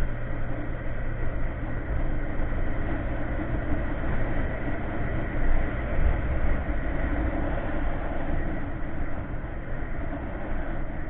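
Wind buffeting the microphone of a Yamaha Mio MX125 scooter being ridden at speed, with the scooter's single-cylinder engine running steadily underneath.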